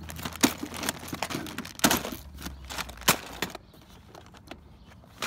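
Clear plastic tackle boxes full of lures clicking and knocking against each other and the crate as they are handled and shifted, with plastic rustling. The sharpest knocks come about half a second, two and three seconds in, and it dies down to a few light ticks after about three and a half seconds.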